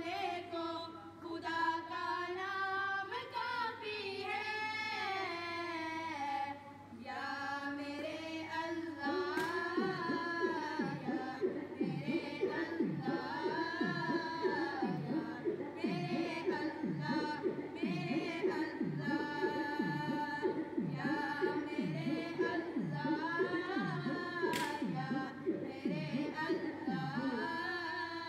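A high voice singing a devotional song with no instruments heard. About nine seconds in, a low, falling beat joins it, roughly one and a half beats a second.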